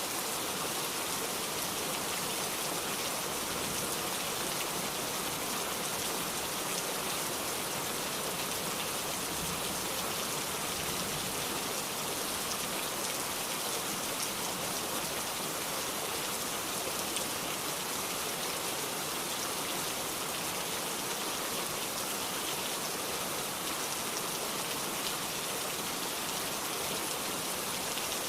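Heavy, steady downpour of rain, an even hiss of drops on surfaces with no let-up.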